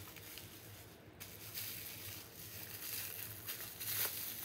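Bubble wrap rustling and crinkling as a wrapped item is pulled open, with a few faint sharp crackles.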